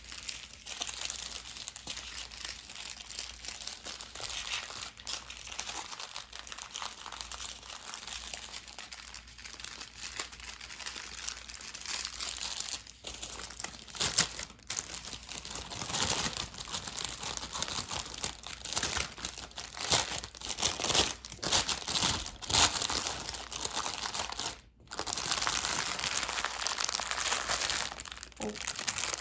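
Plastic bags of diamond painting drills crinkling and rustling as they are handled and packed back into their packaging, with continuous crackling that grows louder and sharper about halfway through.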